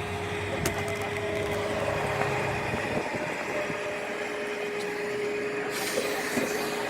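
A motor vehicle's engine running steadily, with a constant tone held over it.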